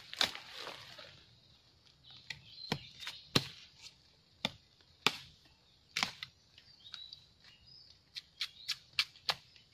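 A blade chopping and cutting at the base of a young bamboo shoot. Sharp single strikes come about a second apart, then a quicker run of about five strikes near the end.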